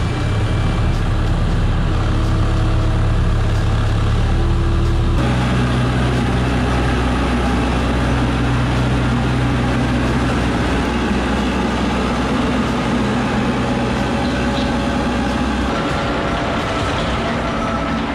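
Caterpillar mini excavator's diesel engine running just after start-up as the machine tracks out of the garage. Its engine note steps up about five seconds in and then holds steady.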